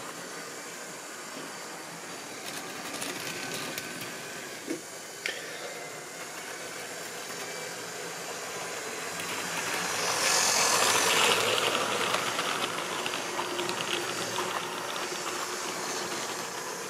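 Model railway rolling stock running on the track, with a steady rattle of small wheels on rail and a small electric motor running. Two sharp clicks come about five seconds in, and the running gets louder and hissier between about ten and twelve seconds in.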